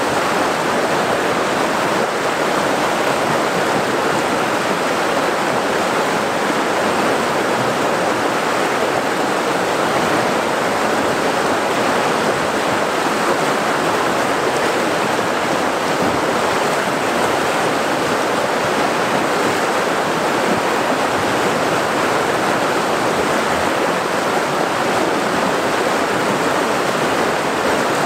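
River rapids rushing and churning over boulders: a steady roar of white water.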